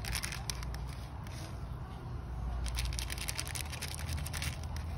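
Small plastic seed packet crinkling and rustling as fingers pick through the seeds inside, in two spells of quick crackles, over a steady low rumble.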